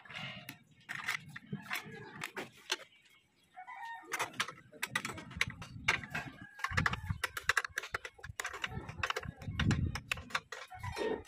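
Metal hand tools clicking and clinking in an engine bay, a wrench working bolts loose, in quick irregular taps with a denser run in the middle.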